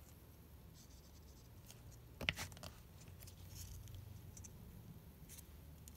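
Quiet handling of paper loops and a bottle of tacky glue on a cutting mat, with one short knock about two seconds in as the glue bottle is set down, then a few faint paper rustles and taps as the loops are pressed together.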